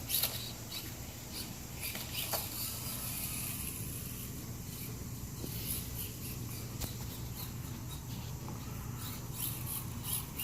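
Radio-controlled car's electric motor running with a faint steady hum, with scattered light clicks and ticks.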